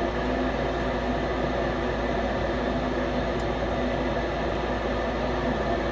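Rheem 90% gas furnace running: a steady mechanical hum with an even whoosh of air, holding the same level throughout.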